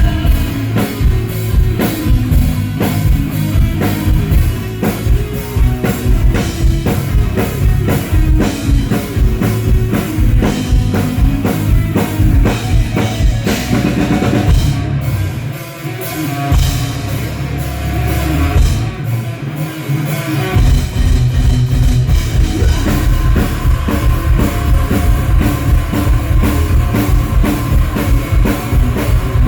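Rock band playing: a drum kit keeps a busy beat under guitar and bass. About halfway through the drums drop out for a few seconds, leaving held low bass notes, then the full band comes back in.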